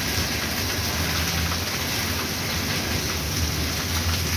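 Steady rain falling on a flooded street and wet brick pavement, an even hiss of drops on water, with a low rumble underneath.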